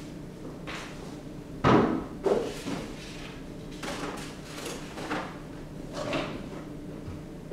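Household activity noise: a sharp bang about two seconds in, followed quickly by a lighter knock, with scattered softer knocks and shuffling throughout. A low steady hum runs underneath.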